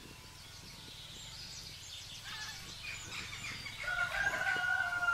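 A rooster crowing: one long drawn-out crow beginning near the end, after a few short bird chirps.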